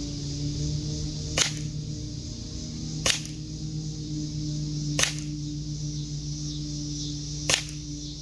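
Gamo P-430 CO2 air pistol firing four single shots at a slow, uneven pace, one sharp pop every two seconds or so. A steady hum runs underneath.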